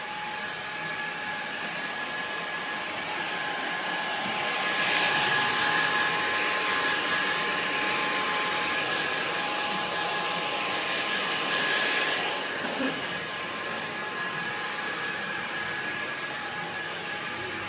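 Hand-held hair dryer running with a steady whine and a rush of air. The air noise grows louder about five seconds in and drops back after about twelve seconds.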